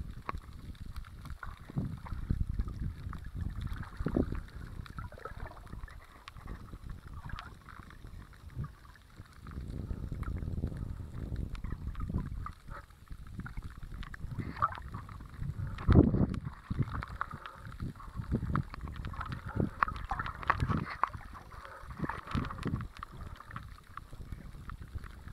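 Muffled wash of shallow sea water heard underwater: a low, shifting rumble with scattered knocks and one louder thump about two-thirds of the way in.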